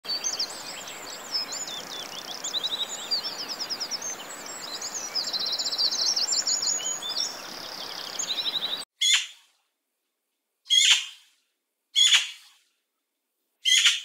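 Several songbirds singing together, with many quick chirps and a trill, over a steady hiss. The chorus cuts off abruptly about nine seconds in. It is followed by a single short, falling call repeated about every second and a half.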